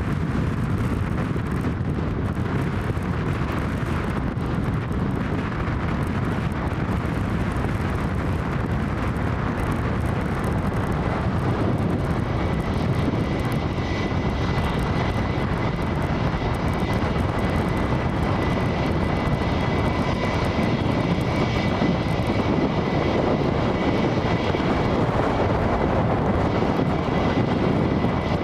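Airbus A320 jet airliner arriving to land, its engines a steady rushing noise, with a thin high whine coming in about halfway through. Strong wind blows across the microphone.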